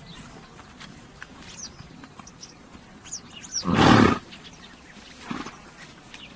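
A horse snorts loudly once, about three and a half seconds in, with a second, fainter snort a little later. Birds chirp faintly in the background.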